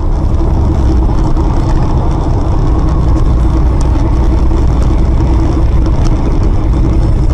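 Steady engine and road rumble of a car driving in traffic, heard from inside the cabin.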